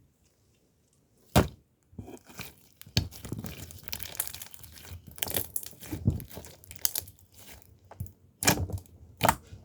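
Crinkling and tearing handling noise, like a wrapper or packaging being worked by hand, broken by several sharp clicks and knocks.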